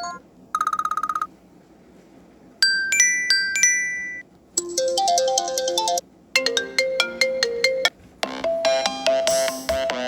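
A run of iPhone ringtones played one after another, each a short snippet of a second or two with brief gaps between: first a fast trilling buzz, then chiming bell notes, then three short melodic ringtone tunes, the last still playing at the end.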